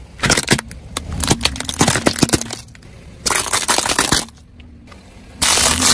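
Hard plastic toy fire trucks cracking and snapping apart under a car tyre: a quick series of sharp cracks over the first two seconds or so. Two bursts of rushing noise, each about a second long, follow later.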